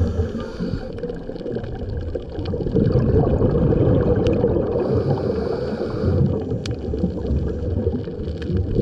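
Muffled, low underwater water noise picked up by a camera in its waterproof housing, with scattered sharp clicks. It grows louder about three seconds in and eases off again a few seconds later.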